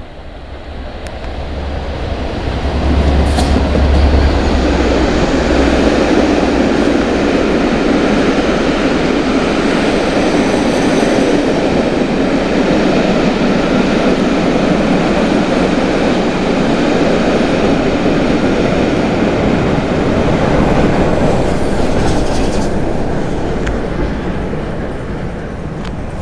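A passenger train with a Class 67 diesel locomotive and the steam locomotive 60163 Tornado passing at speed. The sound builds as it approaches, with a deep rumble about three to five seconds in, then a steady rolling of wheels on rails as the coaches go by, fading near the end.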